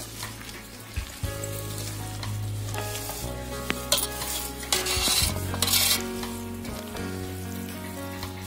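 A hand squelching and stirring wet spiced batter through raw cauliflower florets in a stainless steel bowl. Several louder wet squishes come between about four and six seconds in.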